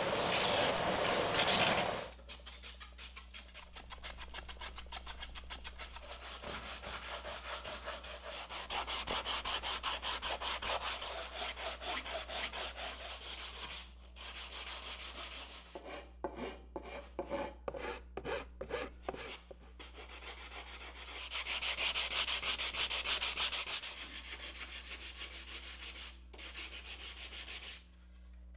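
Sanding block rubbed back and forth over the edge of a wooden kayak paddle blade in quick, even strokes. The first two seconds hold louder, coarser sanding.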